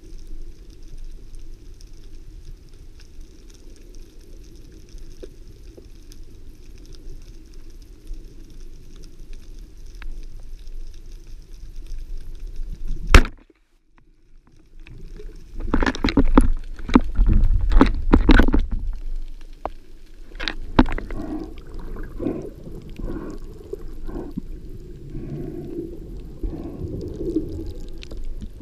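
Underwater hum and hiss from a speargun-mounted camera, then, about 13 seconds in, one sharp, very loud snap as the band-powered speargun fires. After a short drop-out come a few seconds of loud knocks and rumbles, then smaller repeated knocks.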